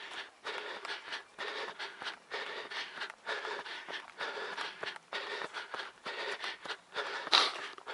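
Trail runner's heavy breathing, panting about twice a second in rhythm with the stride, with one louder burst near the end.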